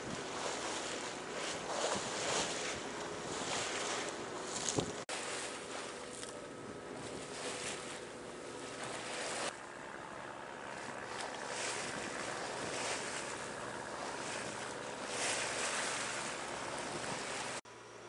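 Open-sea water washing along a sailboat's hull with wind on the microphone, the rush swelling and easing every second or two over a faint steady hum. It changes abruptly a few times, with a sharp click about five seconds in.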